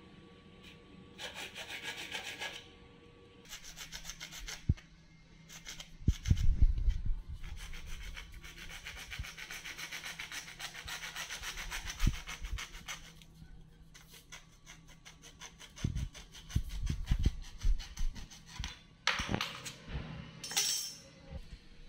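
A bare hacksaw blade sawing through white PVC pipe in rapid back-and-forth strokes. The sawing comes in several spells with short pauses, and a few low knocks from handling the pipe fall between them.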